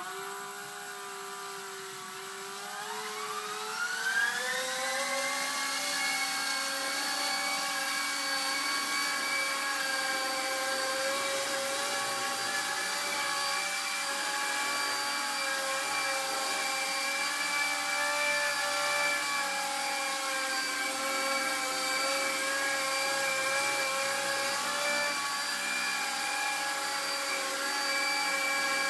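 Hubsan Lynx H101B micro RC helicopter's electric motors and rotor blades whining as it spools up and hovers. About two and a half seconds in the whine rises in pitch and grows louder, levelling off by about five seconds into a steady hover whine that wavers slightly in pitch.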